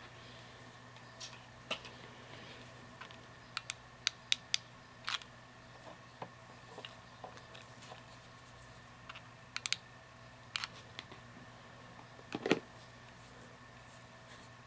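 Irregular light clicks and taps, some in quick clusters and the loudest about twelve seconds in, over a steady electrical hum.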